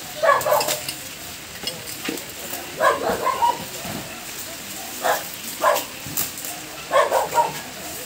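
A dog barking, short barks, sometimes two together, every second or two, over the crackle of dry bamboo leaves and sticks being poked through.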